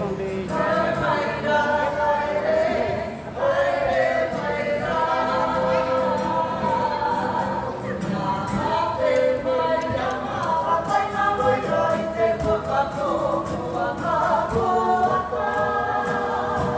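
A choir: many voices singing together in harmony, with sustained, held notes.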